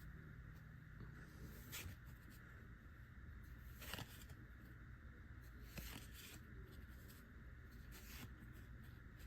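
Near silence over a steady low hum, with a few faint soft rustles of Pokémon trading cards being slid and flipped through by hand.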